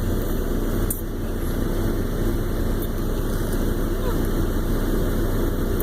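Steady low rumble of a running truck heard inside its cabin, with a brief click about a second in.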